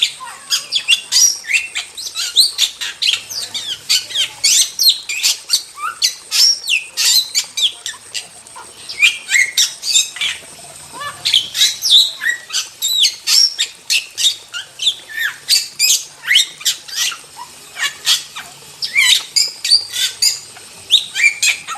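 Starling (jalak) singing vigorously: a rapid, unbroken stream of short, high chattering and squawking notes with quick whistled sweeps, several notes a second.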